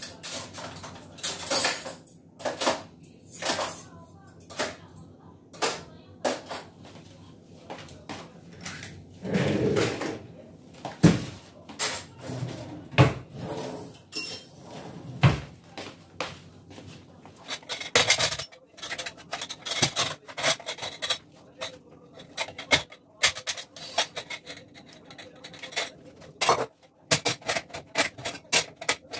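Dishes, cutlery and dishwasher racks clattering and knocking in short bursts as a dishwasher is loaded and shut, then a metal pressure cooker and its lid being handled near the end.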